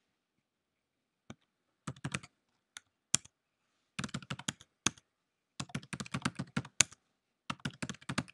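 Typing on a computer keyboard: quick runs of keystrokes in short bursts separated by brief pauses, with a few sharper single key clicks between them.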